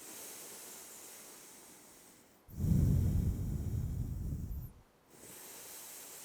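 A person breathing slowly and deeply during a held yoga pose: a quieter, airy breath, then a longer, louder and lower breath about halfway through, then another quiet, airy breath near the end.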